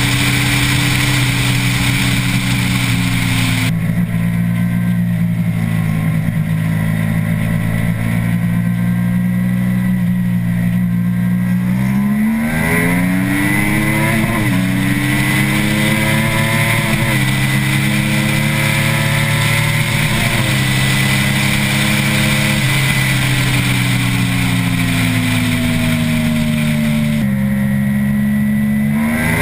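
A vehicle engine running hard at highway speed, its pitch surging up about twelve and fourteen seconds in, sinking slowly near the end, then rising again, over a constant rush of wind and road noise.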